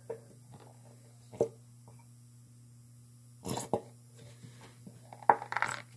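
Plastic bottle of Elmer's school glue squeezed upside down over a container: a few short squelches and taps, then a longer burst of squelching about five seconds in, over a steady low hum.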